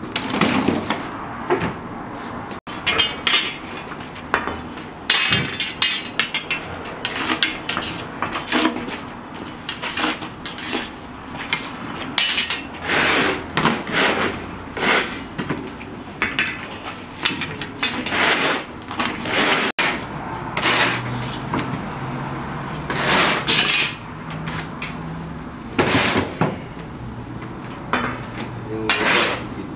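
Long iron hooks and a pole-mounted metal scoop clanking and scraping against each other and the rim of a clay tandoor oven as baked loaves are lifted out. Irregular knocks and clatters, at times several a second.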